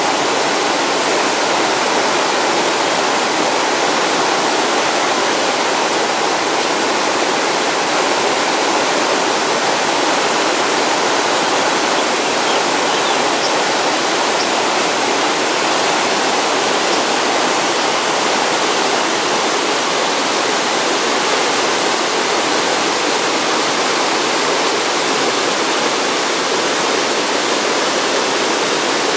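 Rocky stream cascading over boulders in white water: a steady, unbroken rush.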